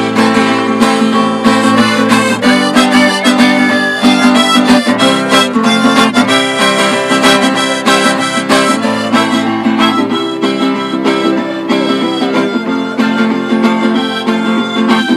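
Harmonica in a neck rack and a strummed acoustic guitar played together by one musician: held harmonica notes over a steady strumming rhythm.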